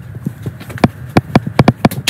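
Claw hammer striking long nails into the wooden slats of a lobster creel base: a quick, uneven run of about eight sharp knocks, the hardest in the second half.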